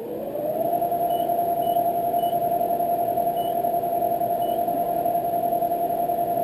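An electric motor spinning up to speed within about the first second, then running steadily with a whine over airy noise.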